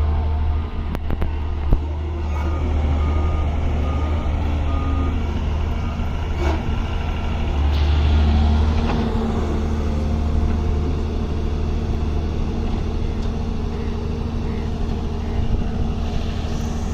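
Heavy diesel engine of an excavator running under load, with a back-up alarm beeping evenly for the first five seconds or so. A few sharp metallic knocks.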